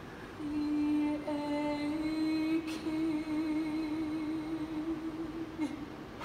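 A woman's singing voice holding one long sustained note, stepping up slightly in pitch about a second in and taking on a vibrato in the second half before it stops near the end.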